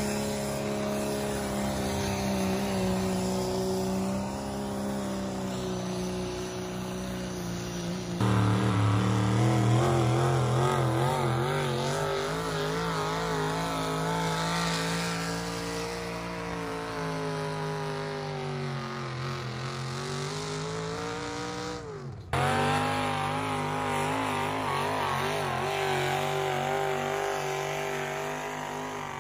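Vehicle engine running at a steady speed, its pitch wavering and at one point sagging and climbing again. The sound changes abruptly twice, about 8 and 22 seconds in.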